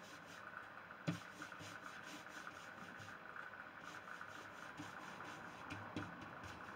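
Faint steady mechanical hum, with a sharp knock about a second in and a softer one near the end.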